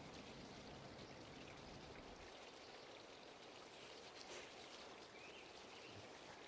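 Near silence: faint, even outdoor background noise.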